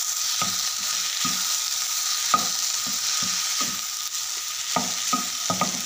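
Spiced mashed-potato filling sizzling in hot oil in a frying pan while a wooden spatula stirs and scrapes it, with a steady hiss and short knocks of the spatula against the pan about two or three times a second.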